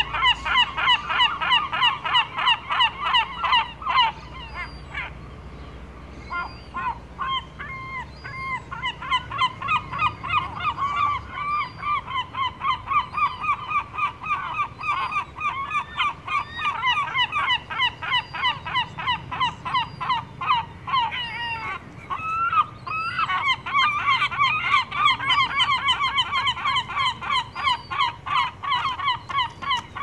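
Gulls calling over and over: a rapid series of short, honking cries, about three a second, with brief lulls about five seconds in and again a little past twenty seconds.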